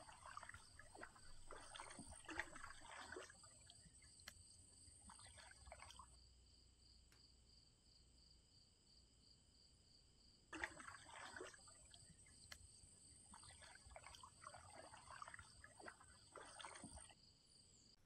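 Faint water dripping and trickling on a still pond around a preening Pacific loon, over a thin steady high whine. The sound drops out completely for about four seconds in the middle, then returns.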